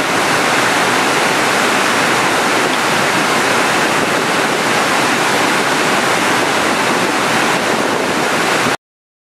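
Overflow water from a full reservoir rushing down a rocky spillway channel, a loud, steady rush of white water that cuts off abruptly near the end.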